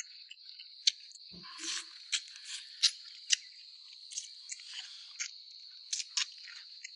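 A steady, high-pitched insect chorus runs underneath someone eating at the table. Over it come about a dozen sharp clicks and short crunchy bites, scattered irregularly.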